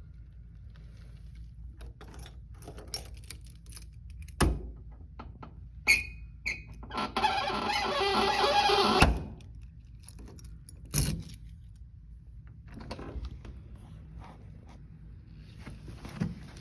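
Keys and lock clicking, then a loud grinding rasp lasting about two seconds as a door deadbolt is turned with a key, followed by a single clunk.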